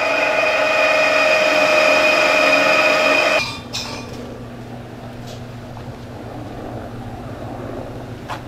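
Bench drill press running at speed, drilling a hole through a black disc: a loud steady whine with several pitches. It stops abruptly about three and a half seconds in, leaving a much quieter steady low hum.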